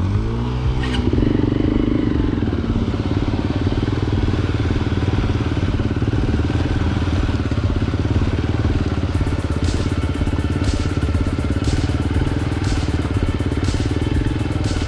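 Hero Impulse motorcycle's single-cylinder engine revving up in the first second, then running steadily.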